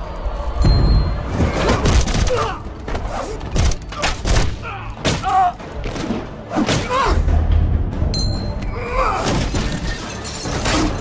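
Dramatic film-score music under a rapid series of sharp hits and crashes.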